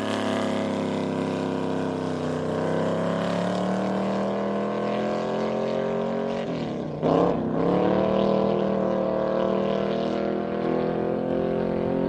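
Land-speed race car engine running hard at high revs, its pitch climbing slowly. About seven seconds in the pitch dips sharply and comes back up as it shifts gear, then holds high.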